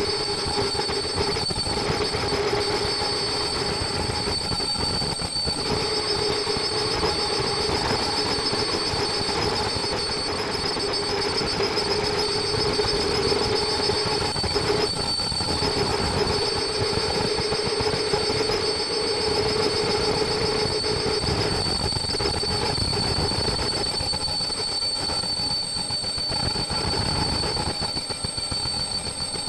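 Fully automatic face-mask production line running: steady mechanical noise with several high, steady whines on top and a lower hum that eases off about two-thirds of the way through.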